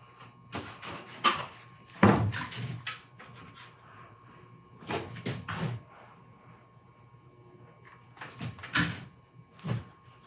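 Light knocks and scuffs of foamcore boxes being handled, pressed and set down on a workbench during hot-glue assembly, in several separate clusters, the loudest about two seconds in.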